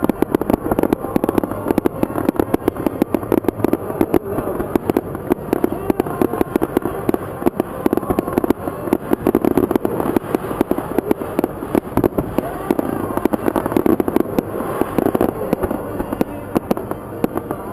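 Fireworks crackling: a dense, irregular stream of sharp pops and crackles that never lets up.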